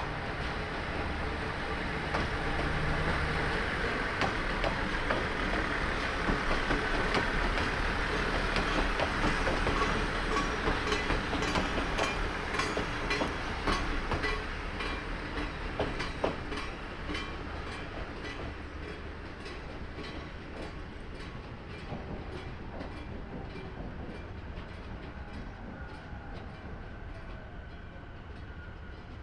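Train running past: its rumble builds, the wheels click over the rail joints in a run of clacks about halfway through, and the sound then fades away.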